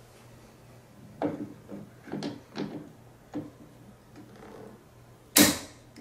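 Locking pliers (vise grips) being clamped onto a door hinge pin's bottom cap. A few light metal clicks and knocks come as the jaws are set against the hinge, then a sharp snap near the end as the handles lock shut.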